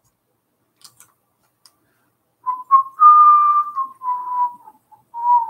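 A person whistling a short run of notes, starting about two and a half seconds in, one note held longer than the rest. A few faint clicks of handling come before it.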